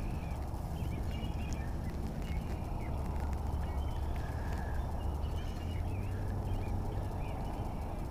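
Birds calling again and again in short, wavering high calls, over a steady low rumble.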